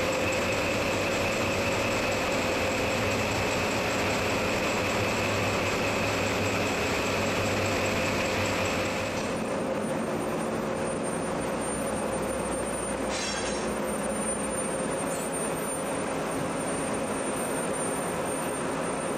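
Steady, loud engine-room machinery noise: a drone with a high whine and a lower hum held over it. About nine seconds in, the sound cuts to a duller, lower drone, with a brief harsh rasp a few seconds later.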